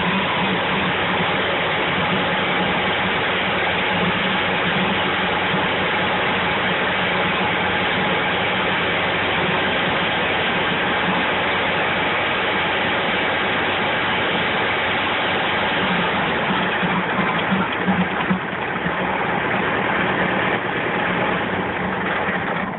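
A-Way Equipment 25-inch PTO-driven stump grinder and its tractor running steadily, the cutter wheel grinding chips out of a fresh-cut sugar maple stump and then spinning clear of the stump, with a steady engine hum under the grinding noise.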